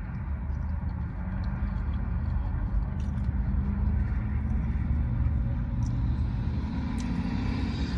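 Steady low rumble and hum of a car idling, heard from inside its cabin.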